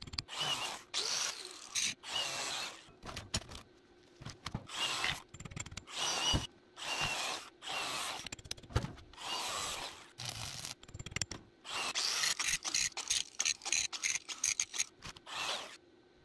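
Angle grinder working the welded seams of steel boxes in short, uneven passes with gaps between them, then a steadier run of grinding with a high whine near the end.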